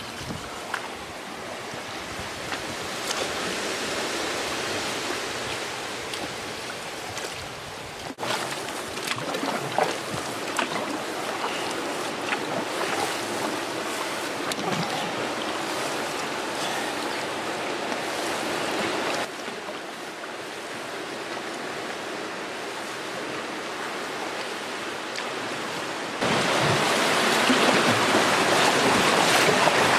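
Rushing river water and wind buffeting the microphone, heard from a canoe. The sound changes abruptly several times, and near the end it grows louder and hissier as the canoe runs into rough rapids.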